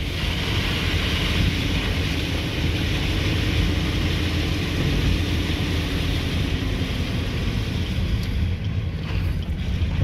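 Car driving on a wet, slushy road, heard from inside: a steady low engine and road rumble with an even hiss of tyres on the wet pavement.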